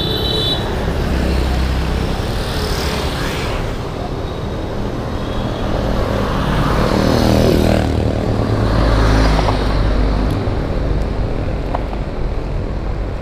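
Road traffic heard from a moving bicycle, with wind rumbling on the microphone. A motor vehicle passes close by about seven seconds in, its pitch falling as it goes.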